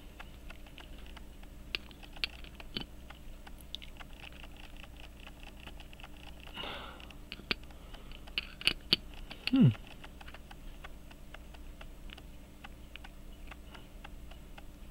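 Small clicks and light taps of a watchmaker's screwdriver and fingers working on a pocket watch movement in its holder, with a louder cluster of clicks about two-thirds in followed by a short falling grunt.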